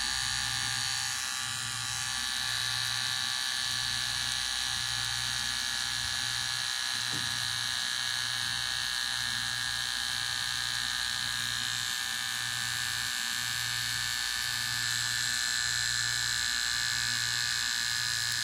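Electric hair clipper running steadily with a continuous buzz, and a low hum beneath it that pulses about once a second.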